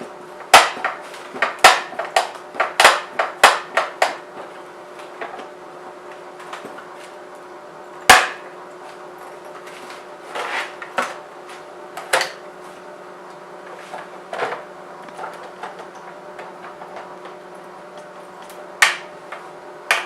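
Hand tools knocking and clicking against a BMW E39 headlight's plastic housing as it is taken apart: a quick run of sharp knocks over the first few seconds, then single clicks spread out, the loudest about 8 s in.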